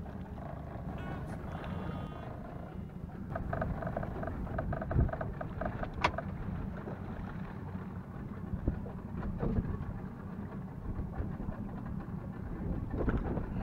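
Steady low rumble of a boat under way, engine and water noise. Faint whining tones come and go in the first five seconds, with a couple of sharp knocks around five and six seconds in.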